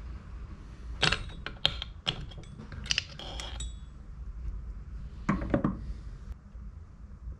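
Metal transmission parts clicking and clinking against the Tuff Torq K46 transaxle case as they are worked into place by hand. There is a run of sharp clicks from about a second in to past three seconds, ending in a brief ring, then another short cluster of clicks about five seconds in.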